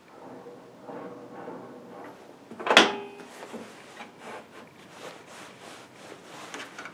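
A wooden board being slid and repositioned on a table saw's table against the fence and miter gauge, with one sharp knock that rings briefly about three seconds in, followed by a few lighter clicks.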